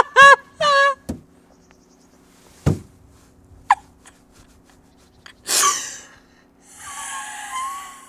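A woman's shrill screaming yell cuts off about a second in. Then comes a single dull thud, a brief squeak, a loud heavy exhale, and a drawn-out wavering groan near the end.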